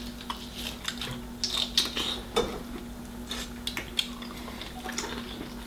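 Eating at a table: scattered small clicks, taps and brief scrapes from handling seafood shells, utensils and plates, over a faint steady hum.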